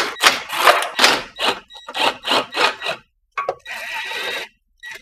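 Cordless impact wrench hammering on a bolt under the car in a series of short bursts, then a longer run with a faint whine near the end.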